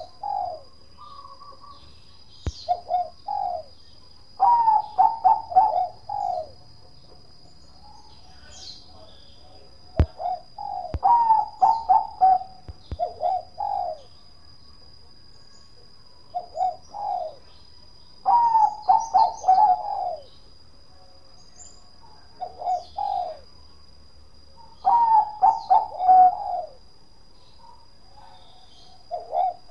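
Zebra dove (Bangkok-type perkutut) singing its cooing song: four full rounds of short low notes running into a quick string of rolling coos, repeating about every six to seven seconds.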